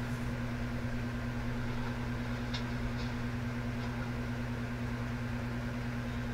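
Steady low mechanical hum, unchanging throughout, with two faint ticks a little under halfway through.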